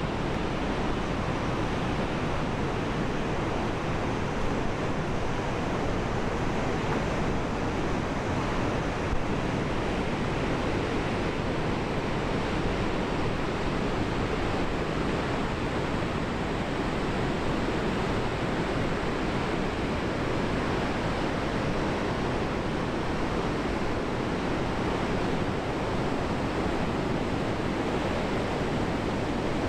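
Steady rush of water pouring through a river weir, a constant noise with no breaks.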